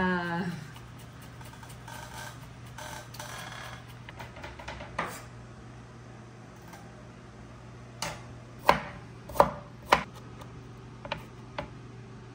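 Knife knocking on a cutting board during food prep: a handful of sharp, irregular chops, the loudest three in quick succession a little past the middle, over a steady low hum.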